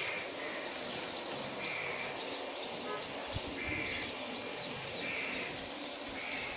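Outdoor ambience of birds chirping over a steady background hiss: short high chirps repeat several times a second, with a softer call recurring about every one and a half seconds.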